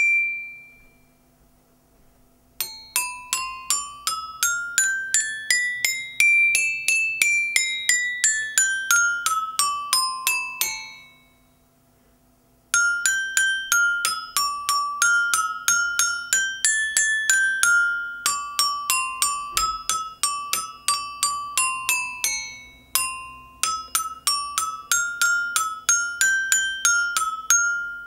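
Child's toy glockenspiel with coloured metal bars, struck with a ball-tipped mallet: one ringing note at the start, then a run of quick notes up the scale and back down, a short pause, and then a tune of single notes to the end.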